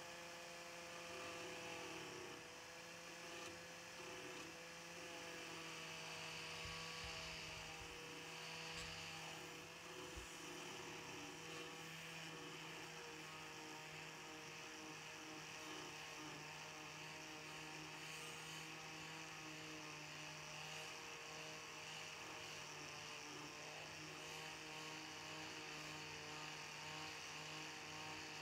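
Angle grinder running steadily with a steady motor whine while its grinding disc works the steel edge of a cleaver blade, with a hiss of grinding.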